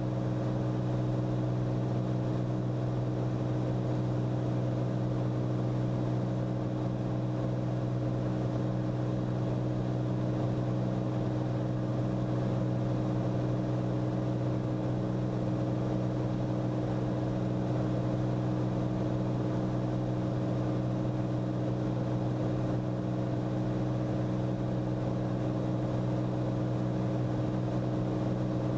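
Cabin drone of a Cirrus SR22T in flight: its turbocharged six-cylinder Continental engine and propeller running at steady power. A constant, unchanging hum made of several steady tones.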